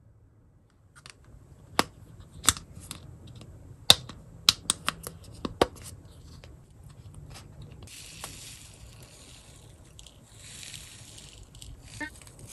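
Hands handling plastic toy parts and packaging: a run of sharp plastic clicks and taps, then two stretches of crinkling rustle from wrapping.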